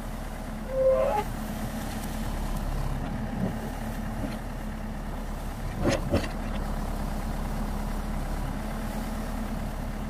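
JCB 3DX backhoe loader's diesel engine running steadily while the backhoe arm digs. A short squeal comes about a second in, and two sharp knocks land close together about six seconds in.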